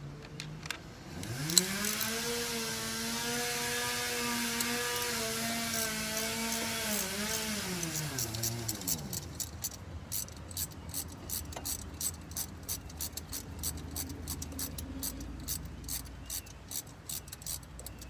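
A cordless power tool's motor spins up, runs steadily for about seven seconds and winds down. Then a ratchet clicks in a regular run, about three clicks a second.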